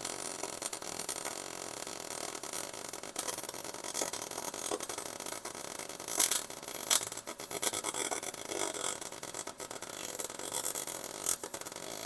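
Welding steel fish plates onto a car's frame rail: a crackling hiss with irregular sharp pops.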